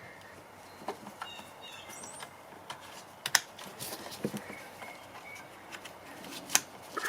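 Scattered light clicks and taps of plastic as the door's switch panel is handled and pressed back into the door trim, with a few faint squeaks about a second in.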